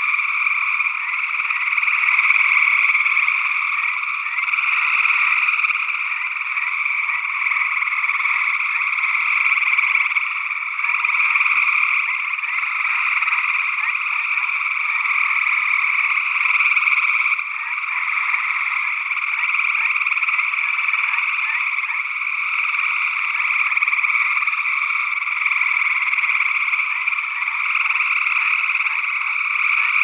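Dense chorus of many gray treefrogs trilling at once, their overlapping calls merging into a steady, unbroken wall of sound.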